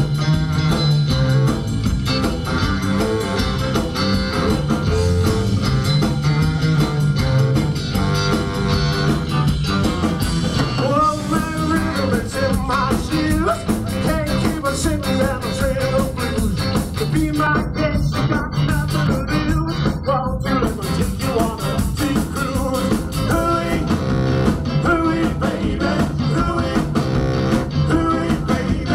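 Live rock and roll band playing an upbeat song: bass saxophone, electric guitar and drum kit over a pulsing bass line, with singing.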